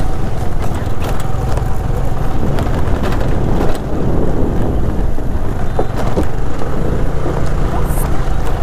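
Motor scooter riding along a rough gravel track: a steady low engine and road rumble, with scattered short clicks and knocks from stones and bumps under the wheels.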